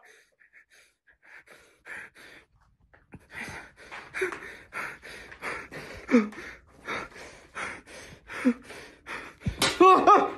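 A man panting hard in quick, even breaths, about three a second, with short voiced gasps among them. Just before the end he lets out a loud cry of "ah".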